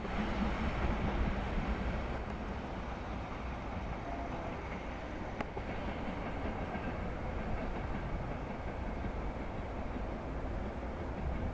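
Diesel railcar running along the track, its engine and wheels making a steady low rumble that eases off slightly as it moves away.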